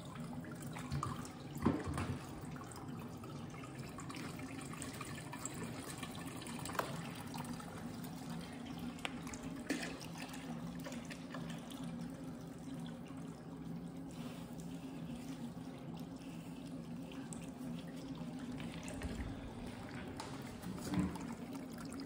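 Melted beeswax pouring and trickling from a bucket and from a tap into a strainer and tub, over a steady low hum. A few knocks, the loudest about two seconds in.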